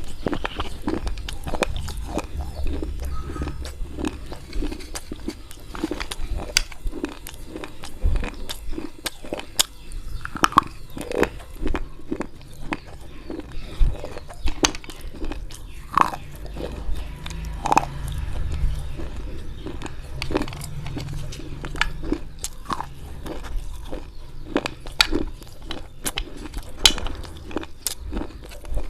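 Slate pencils coated in white khadi clay paste being bitten and chewed: a dense, irregular run of sharp crunches, several a second.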